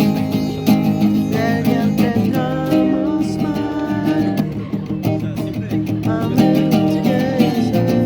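Acoustic guitar strummed in a steady rhythm, with a voice singing the melody over it, in a live acoustic indie song.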